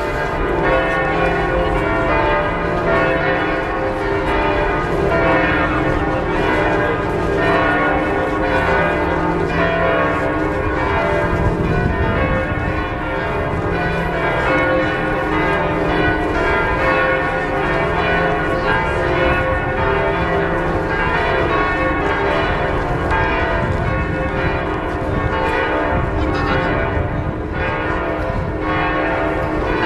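Church bells ringing a continuous peal, many bells struck one after another so that their tones overlap and ring on.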